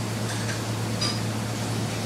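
Steady low hum and hiss of kitchen machinery, with a couple of faint light clicks about half a second and a second in.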